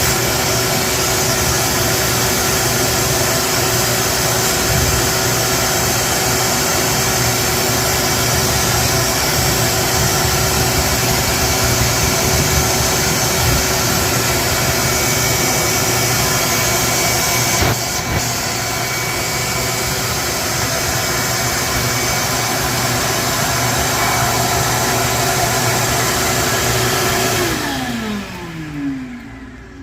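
Whirlpool WFW75HEFWO front-load washer's drain pump running loudly with a steady hum and hiss, the loud draining noise of a washer that will not turn off. There is a brief click about two thirds of the way through, and near the end the pump winds down, its pitch falling as it stops.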